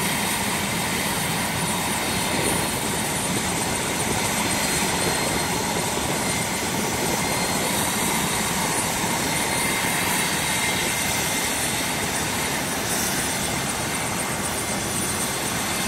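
Medical helicopter running on the ground, its turbine engine and rotor giving a steady whine over an even rush.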